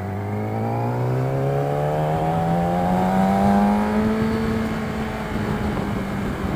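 Yamaha R6's inline-four engine through an Akrapovic exhaust, accelerating gently in gear. Its pitch rises smoothly for about four seconds, then holds steady.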